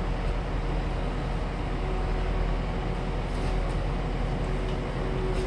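Skid loader engine running steadily close by, with a few faint ticks.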